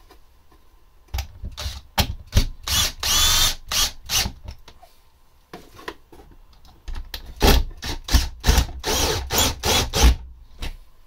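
Cordless drill-driver driving screws into a wooden wall, running in short bursts in two spells, about a second in and again about seven seconds in.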